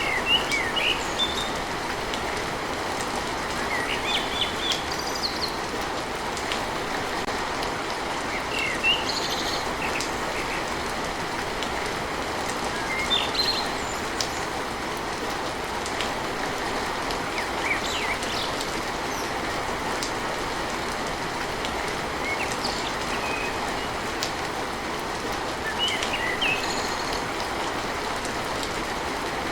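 Steady rain on a tin roof, with birds chirping briefly every few seconds.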